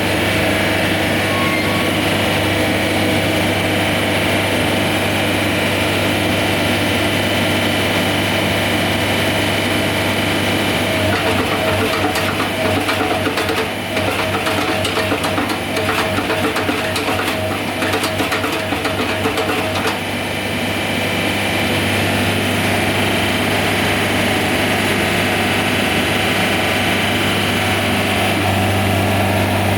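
An engine running steadily at a low, even hum. In the middle there is a stretch of rapid clattering or knocking over it.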